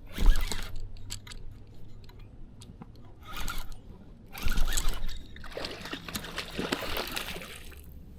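Water splashing and sloshing in several bursts as a hooked channel catfish thrashes at the surface while being brought in.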